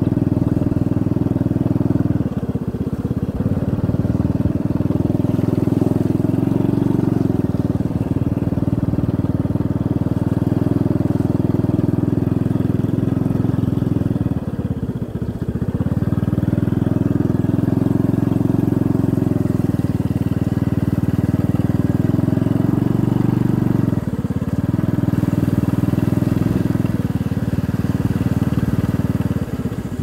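Motorcycle engine running steadily while riding, heard from the bike itself; its deep note dips briefly a few times.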